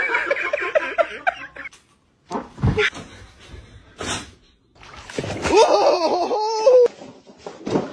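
A person laughing in short pulses, then a couple of sharp knocks, then a long wavering vocal cry near the end.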